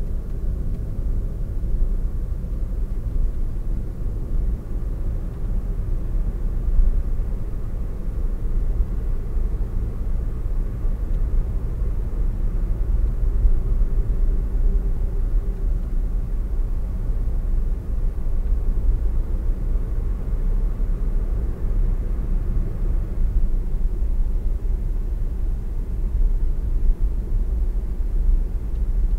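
Steady low rumble of a car's engine and tyre noise, heard from inside the cabin through a dashcam's microphone while driving at country-road speed.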